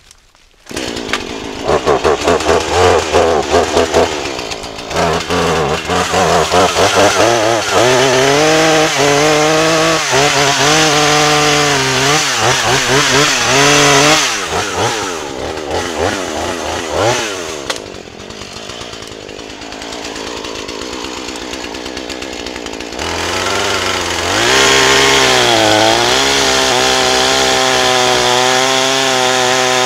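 Husqvarna 435 two-stroke chainsaw starting up about a second in and revving in uneven bursts, then running at rising and falling engine speed. Past the middle it drops back to a quieter, lower idle, then revs up again and holds high, steady revs near the end.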